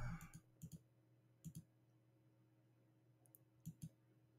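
A few faint, scattered clicks of computer input, some in quick pairs, in a quiet room, as the browser's find bar steps from match to match.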